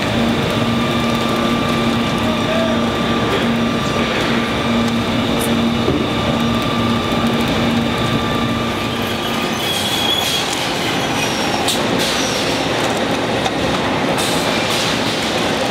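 Plywood mill machinery running: a loud, steady industrial din with continuous hum and whine tones, and scattered sharp clacks and knocks in the second half.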